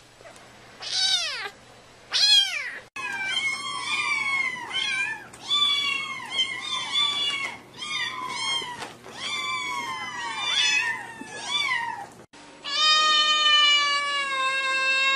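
Kittens meowing: two short, high, falling meows, then a quick string of repeated mews from several ginger kittens. Near the end an adult cat gives one long, steady, drawn-out meow.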